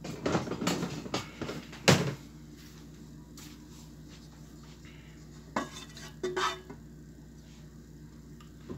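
Kitchenware clattering: a quick run of knocks and clinks of utensils against a pot for about two seconds, the loudest at the end of that run, then two more short clinks in the middle and a light tap near the end.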